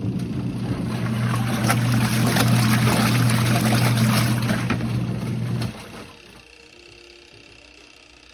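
Small twin-tub portable washing machine's motor running with a steady hum while water churns in the tub. The motor stops about two-thirds of the way in.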